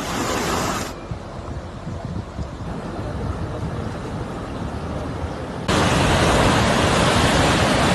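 Steady rushing noise of flowing floodwater, mixed with wind on the microphone. It changes suddenly about a second in, and again near the end, where it becomes louder.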